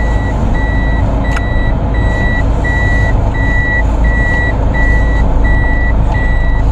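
Car's reverse warning buzzer beeping steadily while the car backs out of a parking spot, about three high beeps every two seconds, over the low hum of the engine inside the cabin.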